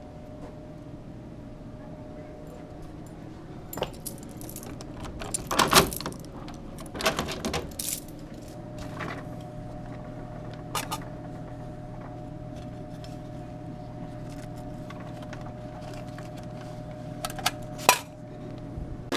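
Coins clinking and metal jangling in scattered bursts over a steady hum.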